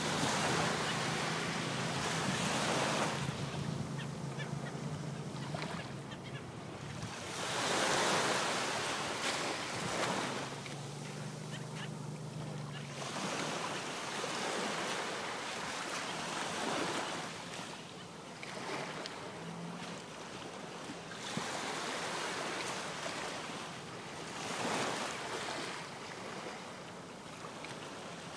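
Gentle surf washing up onto a beach, with each wave swelling and falling away every few seconds. A low, steady hum runs underneath for the first few seconds and again briefly near the middle.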